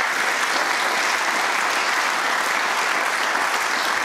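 Studio audience applauding, a steady dense clapping with no break.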